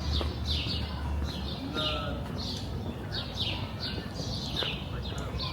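A small bird chirping over and over, short falling chirps about twice a second, over a low steady rumble.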